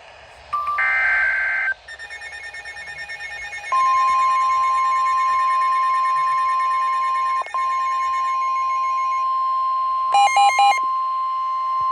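NOAA weather radios alarming for a warning. First come short electronic beeps, then from about four seconds in the steady 1050 Hz weather-radio warning alarm tone, with a brief burst of pulsing beeps near ten seconds.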